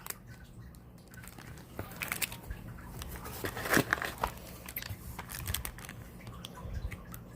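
Product packaging being handled and opened: irregular crinkling and rustling with small clicks and taps.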